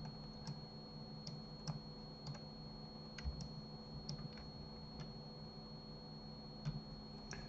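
Faint computer mouse and keyboard clicks, about a dozen, scattered at irregular intervals.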